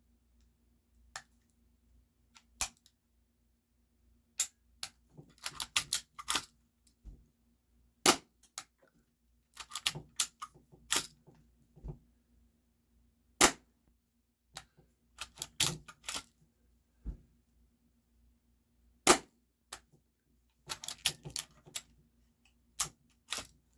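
Full-metal spring-powered 1911-replica airsoft pistol (Game Face GFM311) being cocked and fired again and again: small clusters of clicks and rattles as the slide is racked, each followed by the single sharp snap of a shot, about every five to six seconds.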